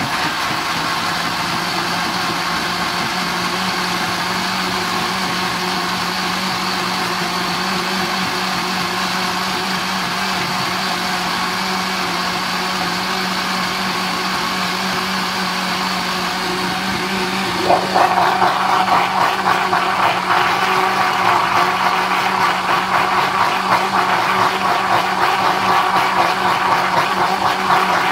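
Countertop blender motor running steadily, blending spinach, banana and water into a smoothie. About 18 seconds in it gets louder and rougher.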